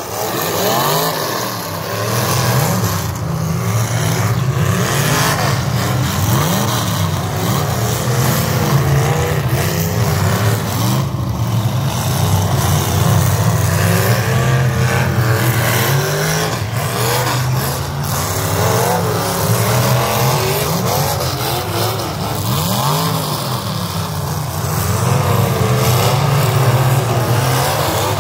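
Several V8 derby cars running hard on a dirt track, their engines revving up and down continuously and overlapping.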